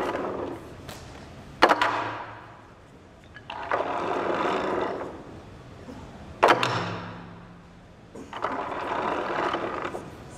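Two sharp strikes in a taekwondo self-defence demonstration, each a loud slap that echoes through a large hall, the second followed by a brief shout. Between them come two bursts of audience noise.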